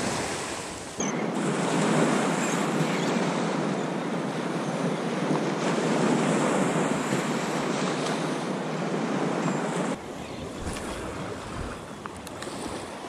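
Ocean surf washing up on a sandy beach, a steady rush of breaking waves, with wind rumbling on the microphone. The wash drops abruptly to a quieter level near the end.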